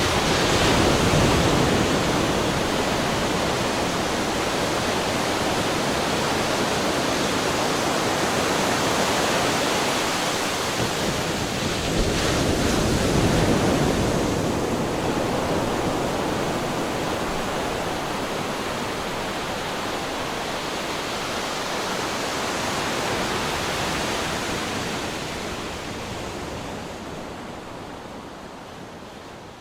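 Sea waves breaking and washing on the shore in a continuous surf noise that swells slowly, strongest about a second in and again around twelve to fourteen seconds, then fades out near the end.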